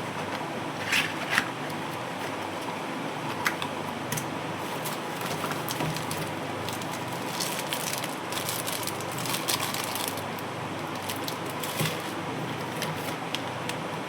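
Packaging being handled and opened: irregular crinkles and clicks, thickest in a flurry about halfway through, over a steady background hum.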